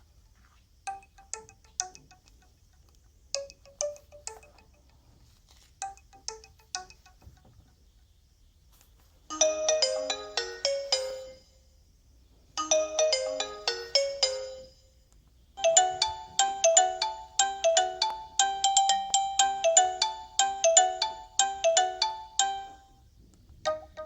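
Alcatel 3088 phone playing its built-in ringtones in turn. First a short chime figure repeats every couple of seconds, then a quick bell-like melody plays twice, then a longer, busier melody, and another tune begins near the end.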